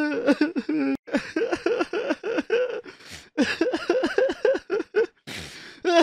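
A person crying: a held wailing note at the start, then a string of short sobs that swoop up and down in pitch, fastest near the end at about five a second, broken by a few abrupt cut-offs.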